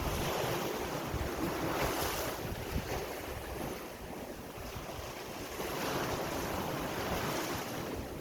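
Sea waves breaking and washing in, rising in two surges, one at the start and one about halfway through, with wind buffeting the microphone.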